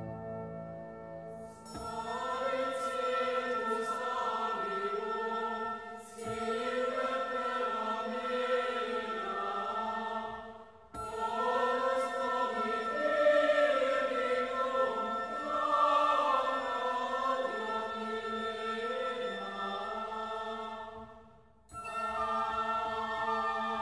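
Background music: voices singing a slow chant-like melody over a steady held drone, breaking off briefly about eleven seconds in and again near the end.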